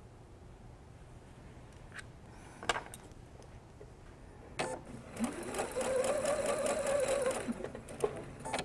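Electric domestic sewing machine stitching a seam. After a couple of faint clicks, the motor starts a little past halfway and rises in pitch. It runs steadily for about two seconds, then winds down and stops.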